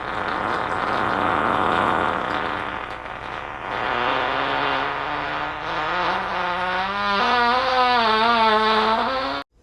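One long fart, rough and noisy at first, turning in its second half into a wavering pitched tone that creeps up in pitch, then cut off abruptly near the end.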